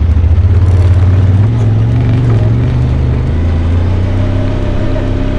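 Side-by-side UTV engine running under load while driving off-road, a loud low drone with its pitch rising slowly.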